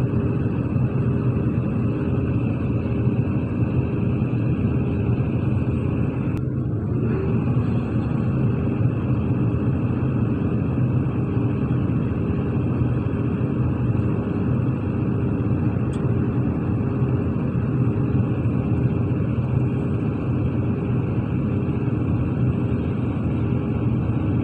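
Heavy diesel engines of earthmoving machinery running steadily, a continuous low drone with a constant pitch.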